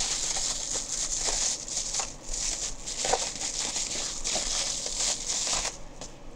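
Bubble wrap crinkling and rustling as it is handled and pulled open by hand, with many small crackles; it dies down near the end.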